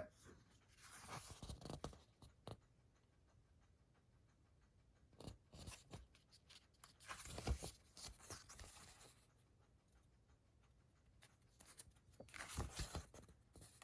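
Faint rustling and soft taps of a paper booklet being handled and its pages turned, in three short spells with quiet between.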